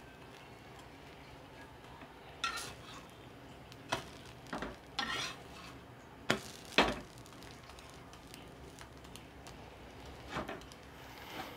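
Metal spatula scraping and clinking against a flat griddle pan as a toasting sandwich is lifted and turned: a scatter of short clinks and scrapes, the loudest two close together between six and seven seconds in.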